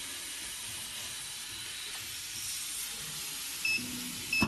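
Steady loud hiss of blowing air from a phone-repair bench machine. It cuts off sharply with a click at the end, and two short electronic beeps sound shortly before that.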